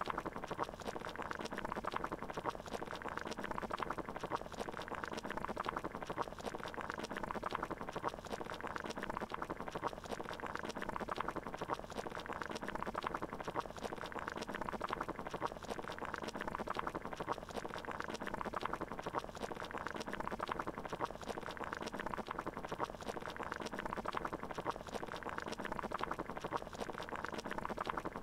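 Water boiling in a pot: a steady, dense bubbling that goes on without a break.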